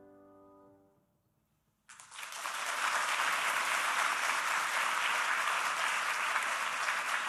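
The last chord of a grand piano fading away, a brief silence, then an audience breaking into applause about two seconds in and clapping steadily.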